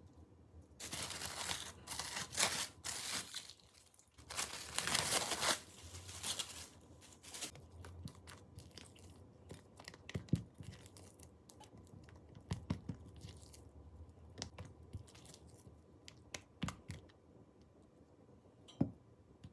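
Kitchen work sounds: two stretches of tearing, crinkling noise in the first few seconds, then scattered light taps and knocks.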